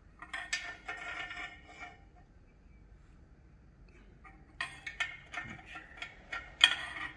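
Steel parts of a hand-made facing tool clinking and scraping as they are slid along the tool's bar and fitted into the end of an axle housing tube. A flurry of metallic clinks with a little ringing comes at the start, then a pause, then more clinks and one sharp knock near the end.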